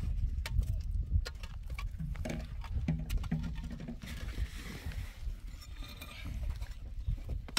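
Concrete blocks being laid on mortar: scattered sharp knocks and taps of block against block, with a stretch of scraping about halfway through.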